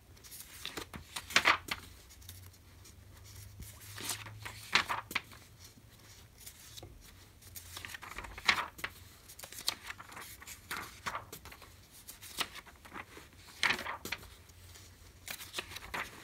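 Glossy magazine pages being turned by hand, a short papery swish every second or two, some coming in quick pairs.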